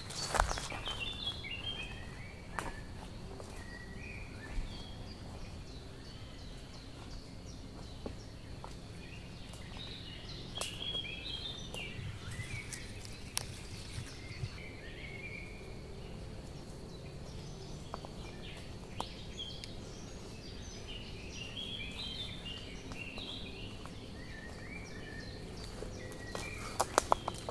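Woodland birds singing in short chirping phrases every few seconds over a steady outdoor background. Footsteps and rustling through undergrowth at the start, a few scattered snaps, and a run of footsteps near the end.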